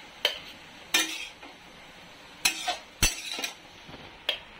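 Metal spatula scraping and knocking on a metal kadhai while soft cooked tomatoes are scooped out and tipped into a steel mixer-grinder jar: about six sharp clinks and scrapes, irregularly spaced.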